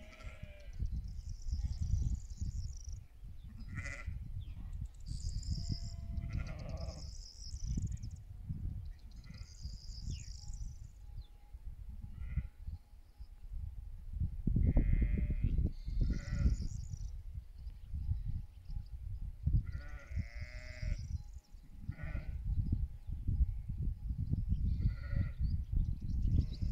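Sheep in a grazing flock bleating several times, single calls spaced out over a low rumble, with short high-pitched chirps in between.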